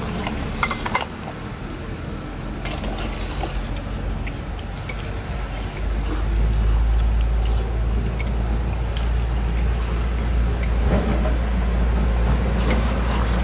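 Clinks of bowls and chopsticks mixed with eating noises during a pho-eating contest, sharpest about a second in. A steady low rumble comes in louder about six seconds in.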